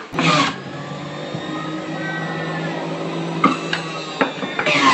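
Panasonic electric juice extractor running steadily, its motor whirring as apple pieces are pushed down the chute, with a few short knocks near the end.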